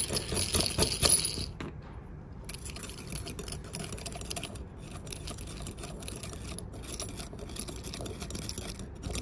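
A steel hand tool scraping around the inside edge of a brass compression nut to take the edge off. There is a sharp, rasping scrape for about the first second and a half, then lighter irregular scratches and small metallic clicks.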